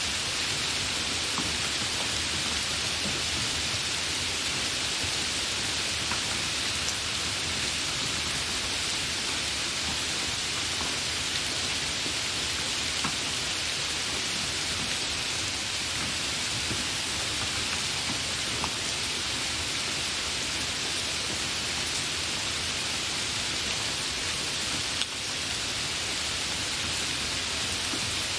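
Heavy rain falling steadily, an even hiss with a few sharper drop ticks now and then.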